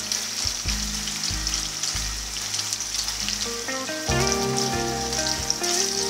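Fish fillets and lemon slices sizzling and crackling steadily in hot oil in a frying pan.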